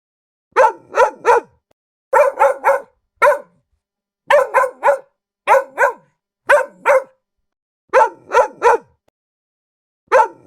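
Dog barking repeatedly in quick runs of two to four sharp barks, with short pauses between the runs.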